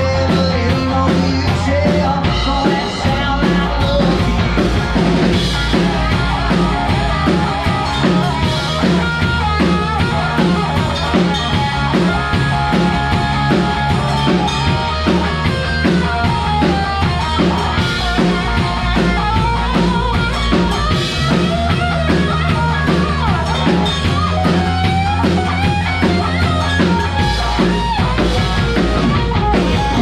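Live rock band playing, with electric guitars over a steady drum-kit beat.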